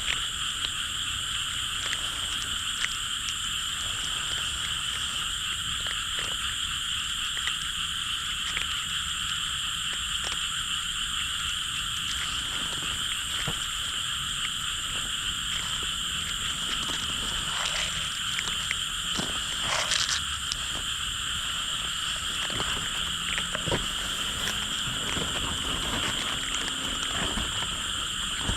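A dense, steady chorus of many frogs calling together at night, with a few scattered faint clicks over it.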